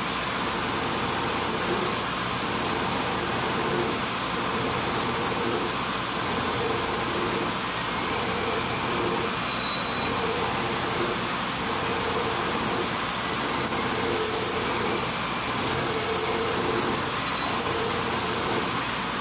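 Milling machine running, its end mill cutting the groove of a steel traverse shaft that is fed by hand: a steady machine drone with a regular pulse.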